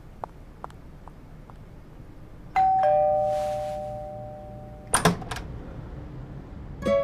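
Two-note ding-dong doorbell chime, a higher note then a lower one, ringing and fading over about two seconds. A sharp click follows just after it dies away.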